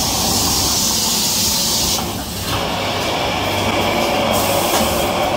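Automated tissue-paper packing line running: a steady mechanical din of motors and conveyors, with a loud hiss for about the first two seconds.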